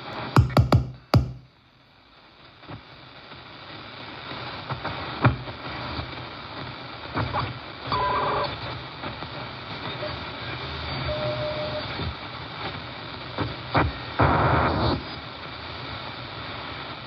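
Belka-DSP shortwave receiver playing through an external speaker while being tuned down through the bands: a few clicks at the start, then steady band noise, with a brief whistle about eight seconds in, a short steady tone a little later and a louder snatch of signal near the end.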